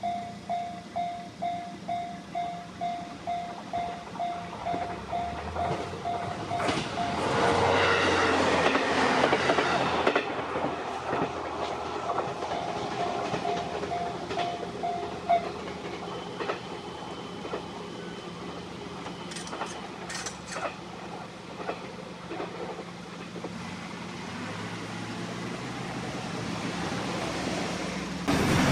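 Japanese level-crossing alarm bell ringing about twice a second as a train passes over the crossing, its wheels clacking over the rail joints. The bell stops about halfway through and the train's sound fades away.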